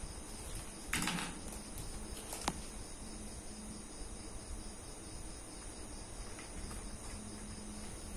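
Faint, steady chirping of crickets, with a short rustle about a second in and a single sharp click a moment later.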